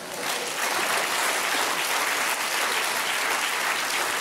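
Audience applauding: dense, steady clapping that swells up within the first half-second.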